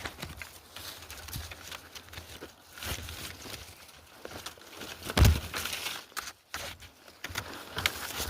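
Irregular rustling and crackling with scattered clicks, and one loud thump about five seconds in.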